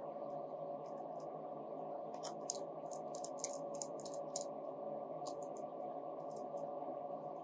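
Small sharp clicks of a Phillips screwdriver working the tiny fixing screws of a laptop's M.2 SSD cover back in, bunched in the middle, over a steady low hum.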